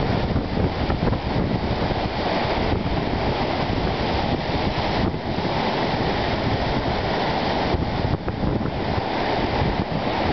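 Wind-driven lake waves breaking and washing over a rocky shoreline in a steady, continuous surf, with wind rumbling on the microphone.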